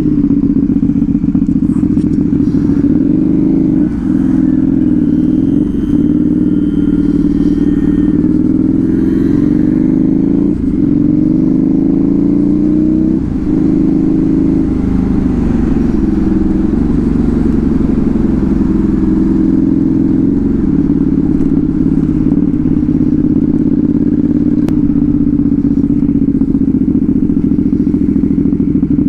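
Motorcycle with a loud exhaust being ridden, its engine note rising and dropping back several times in the first half as it accelerates through the gears, then running steadier at cruise.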